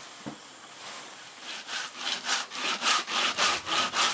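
Cassava tubers being grated by hand on a grater board: rhythmic rasping strokes, about three a second, starting about a second and a half in and growing louder.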